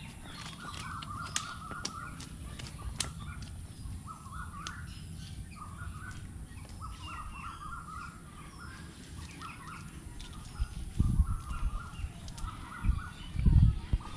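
Birds calling over and over in short clustered bursts, with a few sharp clicks. Near the end, a few loud low bumps on the microphone.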